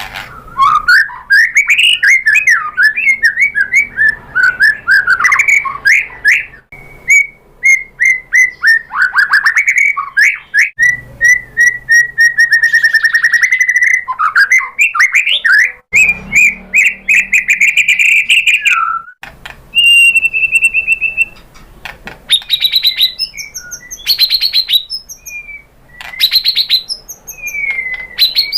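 White-rumped shama (murai batu) singing a long, varied song of rapid whistled phrases, sliding notes and trills, with fast rattling, clicking runs in the last few seconds.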